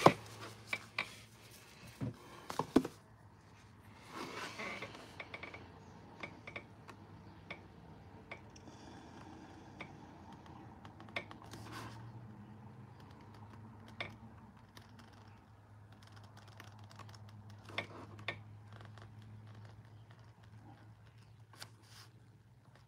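Small clicks, taps and light scrapes of a paintbrush and canvas being handled, loudest in the first three seconds and sparser after, over a steady low hum.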